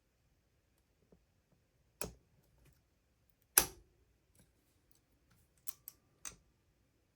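Sharp metallic clicks and knocks from a padlock and lock picks being worked one-handed. There is a click about two seconds in, the loudest knock about halfway through, and three quicker clicks near the end, one with a short ring.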